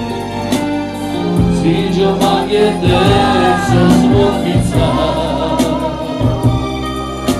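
Roma band music played live and loud, a singer over amplified backing with sustained bass notes and a steady beat.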